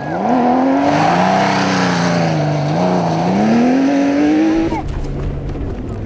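Porsche 911 SC Safari rally car's air-cooled flat-six accelerating hard on a dirt and gravel track, its pitch climbing, dipping briefly about halfway, then climbing again. It cuts off about a second before the end, leaving a lower, steady rumble.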